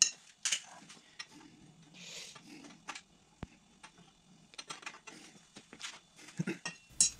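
Light metallic clicks and knocks, with a brief scrape about two seconds in, as cast aluminum spacer discs and the stand's metal bars are handled and fitted together.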